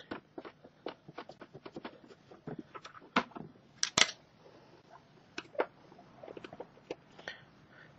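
A run of short, sharp clicks and light knocks from hand tools and fasteners on a Honda Innova's plastic case cover as it is worked loose, quick and regular at first, then sparser, with a louder double click about four seconds in.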